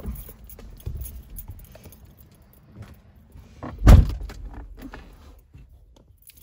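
Car keys jangling with small handling clicks and rustles, and one heavy thump about four seconds in.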